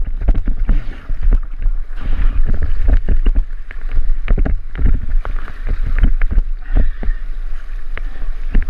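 River water splashing and sloshing against plastic whitewater kayaks at close range, with many sharp knocks and splashes as boats and paddles strike the water, over a constant low rumble on the microphone.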